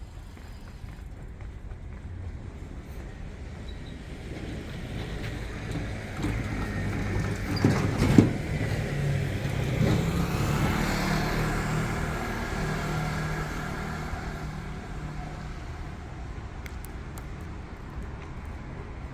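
A motor vehicle passing close by on a city street. Its running sound builds for a few seconds, is loudest a little before halfway with a single sharp knock, then fades away.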